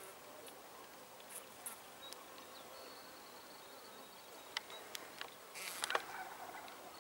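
Faint steady hum of honeybees feeding on a sugar candy cake over the hive's top bars. A few sharp clicks and a brief rustle, the loudest sound, come about five to six seconds in.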